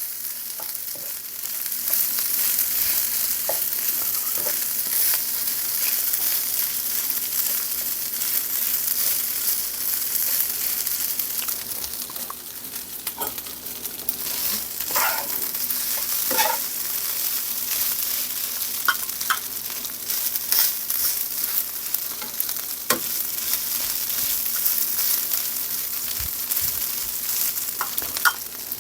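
Fried rice sizzling as it is stir-fried in a hot pan: a steady hiss with occasional scrapes and taps of the stirring utensil against the pan.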